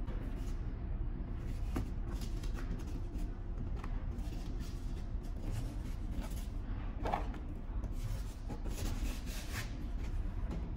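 Handling noises from a polystyrene foam box of welding-powder cups: light rubs and scattered clicks as the cups are handled, the foam lid is closed and the box is lifted, over a steady low hum.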